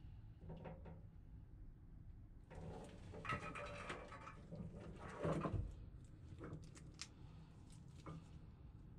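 Gloved hands pull a red PowerTwist link V-belt off a blower fan pulley and handle it. The links rub and scrape against the pulley and each other, then give a few light clicks. A faint low hum runs underneath.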